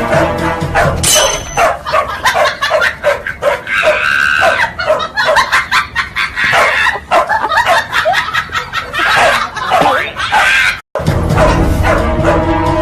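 Background music, then a stretch of rapid, excited dog barking and yipping mixed with people's voices. The barking cuts off abruptly near the end and the music returns.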